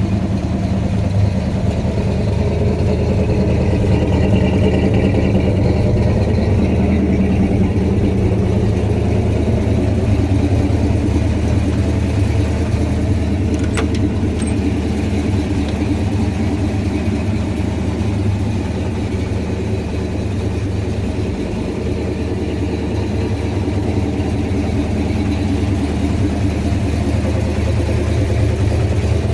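1970 Pontiac GTO's 400 cubic-inch (6.6-litre) V8 idling steadily.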